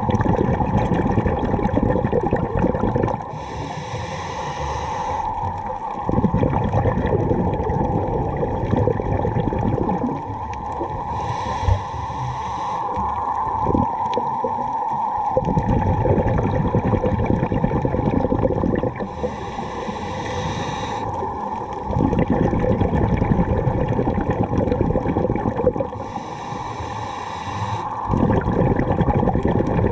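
Scuba diver breathing through a regulator underwater: a short hissing inhalation, then a longer stretch of rumbling, crackling exhaust bubbles, repeating in a slow cycle about four times.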